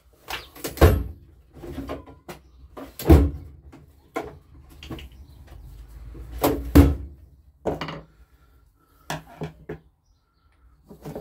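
A string of sharp knocks and clatters, loudest about a second in, about three seconds in and a close pair near seven seconds: hand tools, among them a hammer and a screwdriver, being fetched and set down on a wooden workbench.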